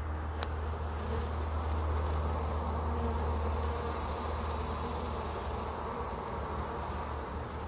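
A dense cluster of honey bees on a wire-mesh trap-out cone, buzzing steadily, with one sharp click about half a second in.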